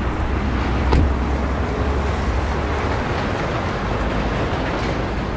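Steady outdoor background noise with a low rumble, and a single knock about a second in.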